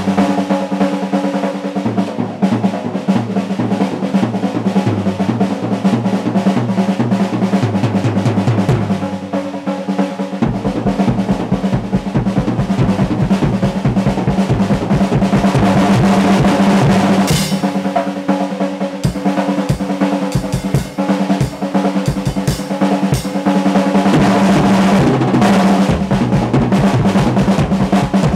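Acoustic drum kit played in a fast drum solo: rapid rolls and stick strokes on the snare and toms. Bass drum kicks join from about ten seconds in.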